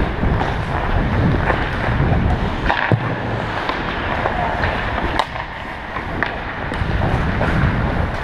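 Ice skate blades gliding and scraping on the ice, heard from a helmet-mounted camera, with wind rushing over the microphone. A few sharp knocks cut through, clearest about three and five seconds in.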